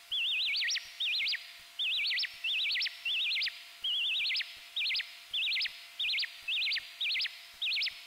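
Joranalogue Filter 8 self-oscillating, its pitch swept by an Orbit 3 chaos oscillator, giving synthetic bird-like chirps with a reverb tail. About two warbling chirps a second, each a quick trill whose pitch swings wider and wider before ending in one sharp sweep.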